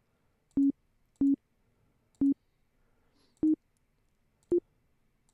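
Short single notes from a Logic Pro software instrument, each sounding as a note is drawn into the piano roll with a mouse click: about six brief beeps at uneven spacing, the first three at one pitch and the later ones a little higher.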